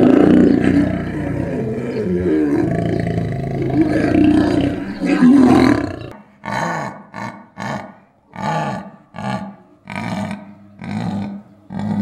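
Lions mating: loud, continuous growling from the pair as the male mounts the lioness. About six seconds in it gives way to a series of short, rhythmic grunting calls from a big cat, roughly one and a half a second.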